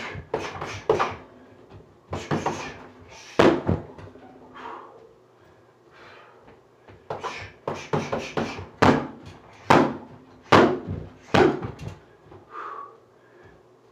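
A boxer's sharp hissing exhales with each punch, in single bursts and quick runs of three to five, mixed with thuds from punches and bare feet on a wooden floor; a blow or two lands on a heavy bag right at the start.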